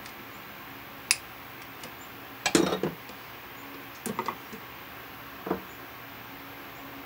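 Hand work with a roll of black vinyl electrical tape and wire cutters: a sharp click about a second in, a short loud rasp of tape being pulled off the roll a little later, then a few quick clicks and one more near the end as a strip is cut and handled.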